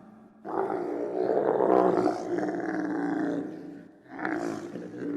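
Giraffe vocalising: a long, deep, pitched call that starts suddenly and lasts about three seconds, then a second call about four seconds in.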